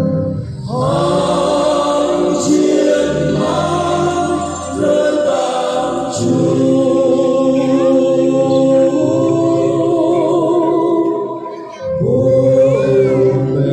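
A choir singing a Christmas carol in long held notes, with short breaths about half a second in and again near the end.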